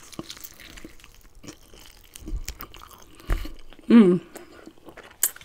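Close-miked chewing of a bite of fried chicken, with many small wet clicks and smacks and two low thumps in the middle. A short hum of the voice comes about four seconds in.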